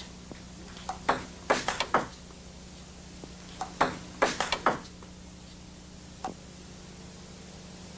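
Table tennis ball clicking sharply off bats and the table in two quick exchanges, one about a second in and one around four seconds in, then a single click a little after six seconds. A low steady hum runs underneath.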